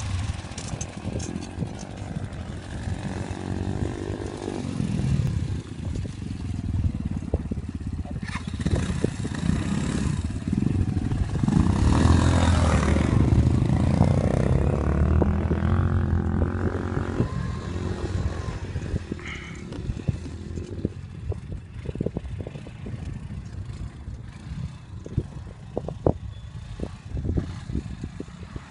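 200cc ATV engine revving up and down while riding off-road, loudest about halfway through. In the last part, sharp knocks and rattles come from the quad jolting over rough ground.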